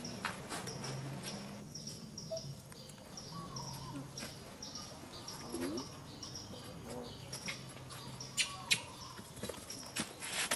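Outdoor ambience: a steady run of short high chirps, two or three a second, over a low hum, with a few sharp clicks near the end.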